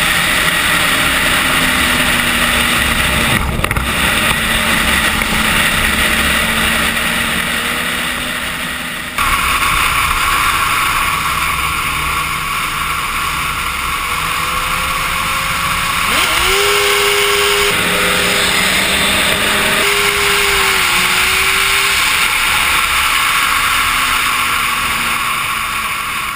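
Suzuki GSX-R sportbike's inline-four engine running at highway speed under heavy wind rush over the camera. A sudden change in the sound comes about nine seconds in. From about sixteen to twenty-one seconds the engine note climbs and holds as the bike revs, and the sound fades out at the end.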